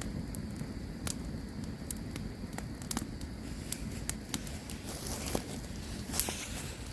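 Campfire crackling: irregular sharp pops and snaps over the steady low rumble of the flames, with a short hiss a little after five seconds in.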